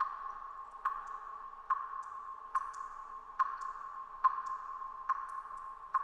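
Water droplets dripping in a cave: a sharp drip a little under once a second in a steady rhythm, with a few fainter drips in between, over a steady background hiss.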